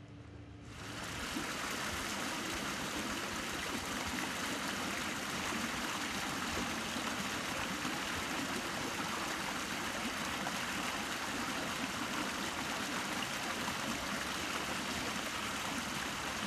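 Water pouring out of a concrete culvert pipe into a shallow stream, a steady rushing splash that starts about a second in.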